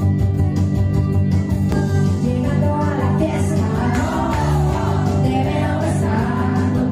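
Pop music with a steady, evenly spaced beat. A lead voice starts singing about two seconds in.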